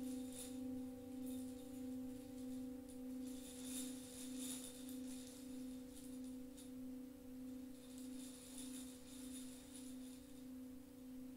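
Himalayan singing bowl sustaining one low ringing tone with a slow, even wobble in loudness. Faint high shimmer comes and goes twice.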